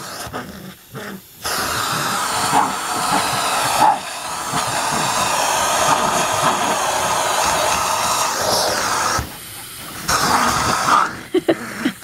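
Vacuum cleaner suction rushing through its hose nozzle, a loud steady hiss that changes as a dog bites and mouths the nozzle. It drops away briefly about a second in and again around nine seconds in.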